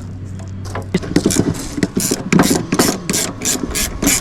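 Sharp metallic clicks and clanks, several a second, from about a second in, as hand tools work on metal; a low steady hum sits underneath at the start.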